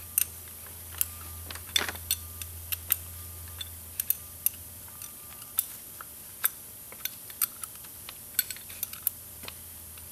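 A 10 mm wrench clicking and clinking on small bolts of a hydraulic pump regulator in short, irregular metal ticks, a few each second, as the bolts holding the sensor leg are turned out. A steady low hum runs underneath.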